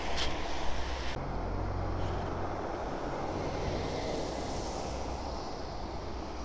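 Street traffic on a wet road: a vehicle passes with a hiss of tyres that swells in the middle and fades, over a steady low engine rumble.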